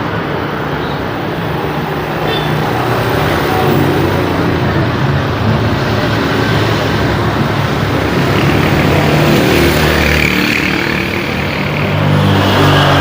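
Busy road traffic: a steady rumble of passing engines and tyres, with a louder heavy vehicle swelling past near the end.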